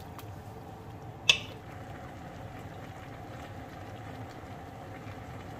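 Coconut-milk sauce simmering in a wok of shrimp and vegetables: a steady, quiet bubbling hiss, with one sharp clack of the cooking utensil against the pan a little over a second in.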